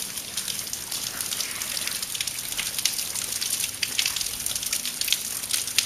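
Water dripping and splashing in a flooded tunnel: a dense, irregular patter of small drops.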